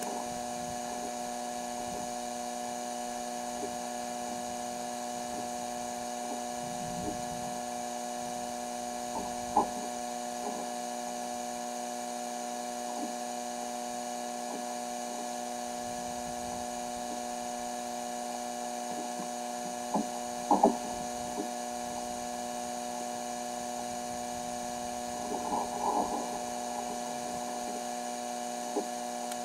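Steady electrical hum made of several held tones, broken by a few short knocks: one about ten seconds in, a quick pair around twenty seconds in, and a small cluster a little before the end.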